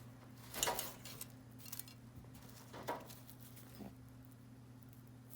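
Pet rabbit grunting a few short threatening 'boo' grunts, a warning sign given while hay is picked up near it, mixed with light rustling of dry hay. A steady low hum runs underneath.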